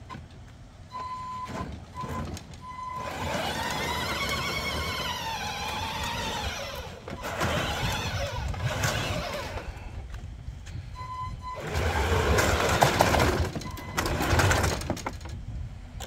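Electric drive motors of a remote-control beach fishing cart whining as it drives, the pitch rising and falling. There are a few short beeps near the start and again partway through, and a louder rumbling rush near the end.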